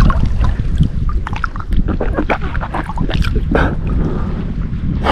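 Wind rumbling on the microphone beside the river, with water lapping and many small irregular clicks and knocks.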